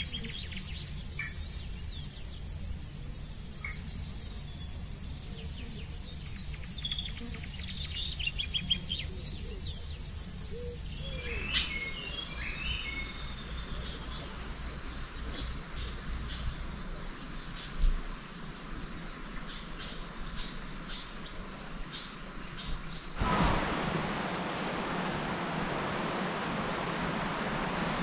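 Tropical rainforest ambience: scattered bird chirps and calls, then a steady high-pitched insect trill from about a third of the way in. The sound changes abruptly twice, and an even rushing hiss takes over near the end.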